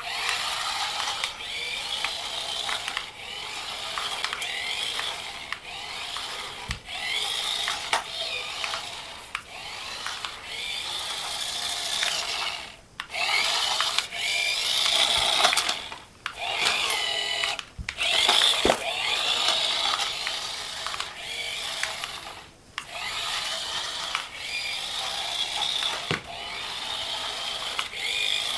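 Small electric motor and plastic gears of a radio-controlled toy running in uneven spurts, with scattered clicks.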